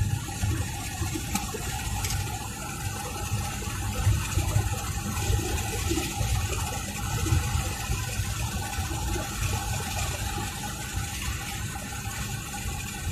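Steady road noise inside a moving car: a low rumble of engine and tyres with no sharp events.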